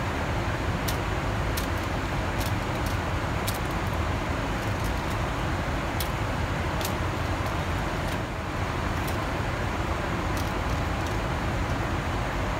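Steady airliner cabin noise in flight, a constant low rumble with hiss above it. Scattered light clicks and taps come from a spoon and aluminium foil trays being handled.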